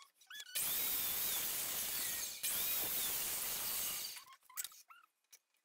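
Powered mitre saw cutting through a wooden board, two cuts of about two seconds each, followed by a few faint clicks and squeaks near the end.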